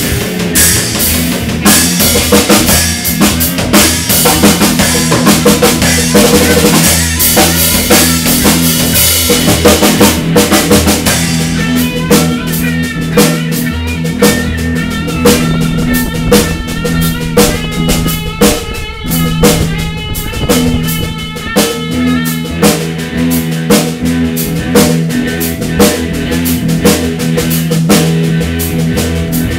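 Three-piece rock band playing live: drum kit, electric guitar and electric bass in an instrumental jam. Cymbals wash over the first ten seconds or so, then drop back, leaving drum hits, held bass notes and clearer guitar lines.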